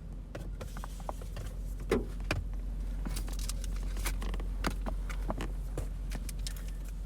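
Trading cards, wrappers and plastic sleeves being handled, a scatter of small clicks and rustles over a steady low hum inside a car.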